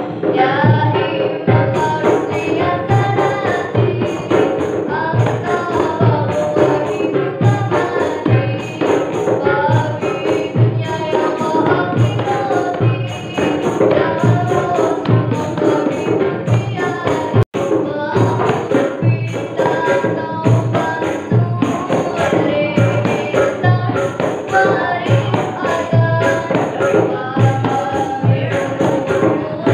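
A girl's voice singing a sholawat, an Islamic devotional song, with a marawis ensemble: a steady beat from the large hajir drum and hand drums, with regular high metallic hits. The sound cuts out for a split second about halfway through.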